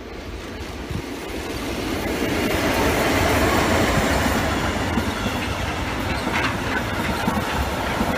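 Freight train headed by two SBB electric locomotives passing close by. The sound grows over the first three seconds as the locomotives come near, then holds steady as the container and tank wagons roll past, their wheels running over the track.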